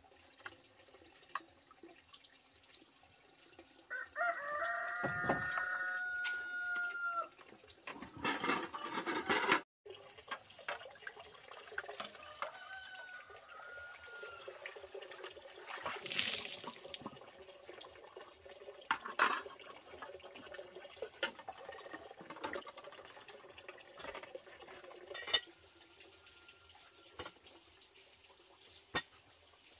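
A rooster crows once, starting about four seconds in and lasting about three seconds. Around it, water splashes and trickles as greens and a pan are washed, with a few sharp knocks of cookware later on.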